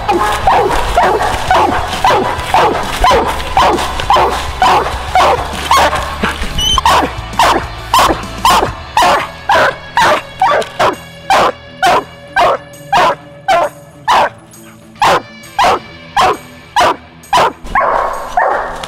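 Coonhound barking steadily at a tree, about two short chopped barks a second, with the barks sharper and clearer from about eight seconds in. It is the hound's tree bark: she has a raccoon treed in a hollow den tree.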